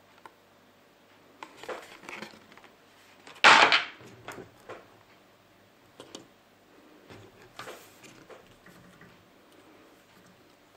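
Handling noises from unpacking a small plastic safety light and its cardboard box on a table: scattered rustles, scrapes and light clicks. The loudest is a short rustling burst about a third of the way in, with a smaller one later.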